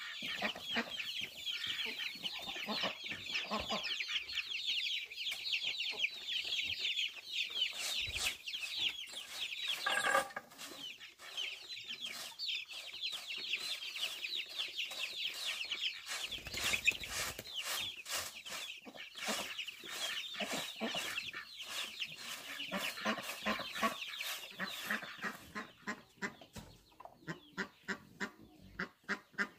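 A flock of chickens clucking and peeping, many high calls overlapping without a break; near the end the flock thins to a run of short, evenly spaced calls.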